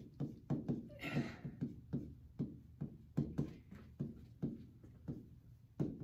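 Hand-writing on a touchscreen interactive whiteboard: the pen tip knocks against the screen glass in light, irregular taps, about three a second, with a brief scratchy hiss about a second in.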